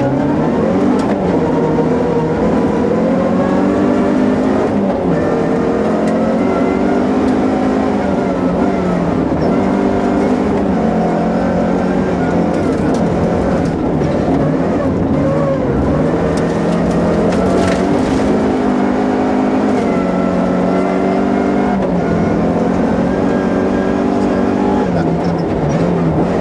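Opel Kadett GSi 16V rally car's 2.0-litre 16-valve four-cylinder engine, heard from inside the cabin, revving hard away from the stage start. It then pulls up through the gears, its pitch climbing and dropping back at each shift.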